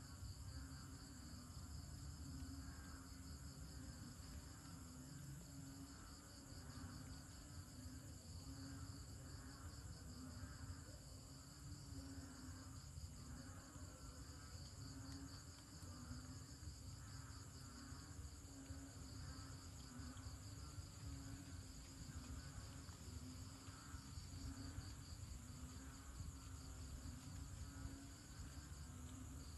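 A banded bullfrog (Kaloula pulchra) giving a low call about once a second, over the high, steady trilling of crickets in a night chorus.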